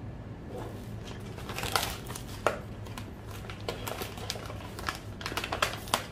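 A large sheet of white vinyl sticker film crinkling and rustling as it is handled, with a few sharper crackles.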